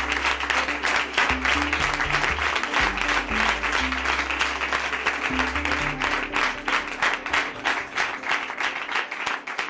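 Background music with a deep bass line changing notes every second or so, over a crowd applauding.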